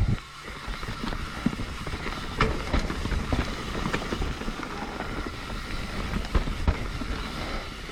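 Mountain bike rolling fast down a dirt trail: a steady rumble of tyres and wind, with scattered sharp knocks and rattles of the bike over bumps.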